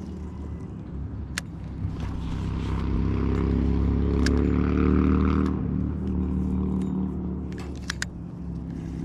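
Boat motor running steadily, growing louder in the middle then easing back, with a few sharp ticks from handling the spinning reel and line.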